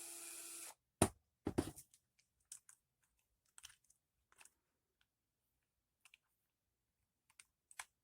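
A small power driver runs briefly and stops under a second in. Then come two sharp knocks and scattered light clicks of small RC-truck parts and screws being handled while the shock is taken off.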